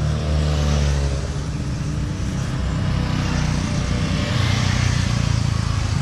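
Touring motorcycles passing one after another with their engines running. The closest one is loudest in the first second, and another rises about four seconds in.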